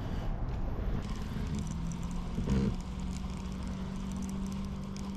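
Steady low hum of a small electric outboard motor, the Torqeedo 1103, pushing the kayak, starting about one and a half seconds in, over a low rumble of wind and water. A brief louder sound comes about halfway through.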